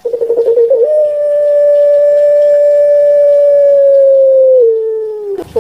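Puter pelung (Barbary dove, Streptopelia risoria) cooing: a short warbling note, then one long, loud, steady coo held for about four seconds that drops slightly in pitch near the end. This is the drawn-out "kwok" that puter pelung are kept for.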